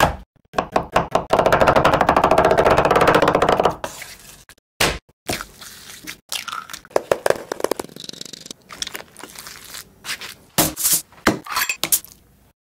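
Close-up food-preparation sounds: a fast run of chopping strokes on a wooden cutting board, then slower scraping and grinding of minced raw chicken in a stone mortar, with a few sharper knocks near the end.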